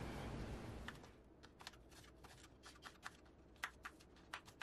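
Kitchen knife chopping a green apple on a wooden cutting board: a string of faint, irregular knocks as the blade goes through the fruit onto the board, after a brief fading hiss at the start.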